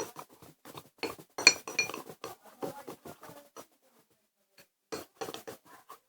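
A spoon stirring a shaving-foam, liquid-soap and salt slime mixture in a bowl, clinking and scraping against the bowl in quick irregular strokes, with a short pause a little past the middle.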